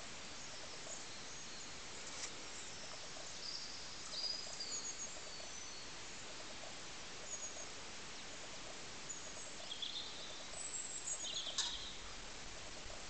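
Steady outdoor hiss with faint, short, high-pitched bird chirps scattered through it, a few louder ones near the end, and one sharp click shortly before the end.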